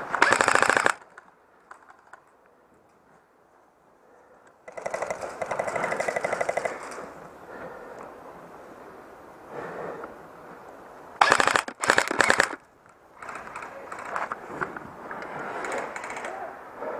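Airsoft electric rifle firing on full auto in rapid mechanical bursts: a short burst at the start, a longer one of about two seconds around five seconds in, and two short bursts close together near twelve seconds.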